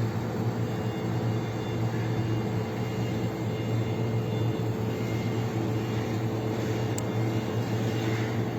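Steady machine hum with a low drone and a faint higher tone, unchanging throughout, and one faint click about seven seconds in.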